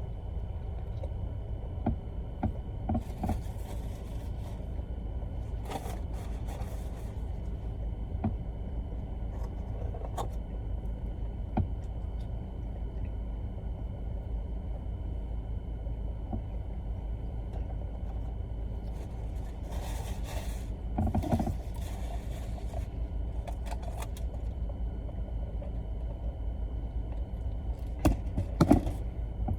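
Steady low rumble of a car idling, heard from inside, with scattered soft clicks and a few brief rustles and mouth sounds from chewing a chicken sandwich.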